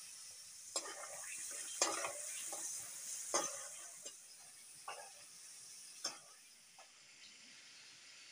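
Food sizzling in a frying pan while a spatula scrapes and knocks against the pan about five times as it is stirred. The sizzle drops away near the end.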